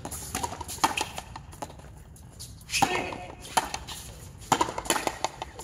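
Frontenis rally: the rubber ball cracks off the rackets and the fronton's front wall in sharp, irregularly spaced knocks. The loudest come about a second in and in a quick cluster between four and a half and five seconds.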